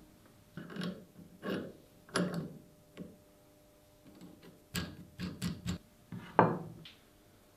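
Metal shear parts being reassembled by hand: a string of about ten short clinks and knocks from painted steel linkage parts and a bolt and nut being handled and fitted, some set against the wooden workbench. The loudest knock comes about six seconds in.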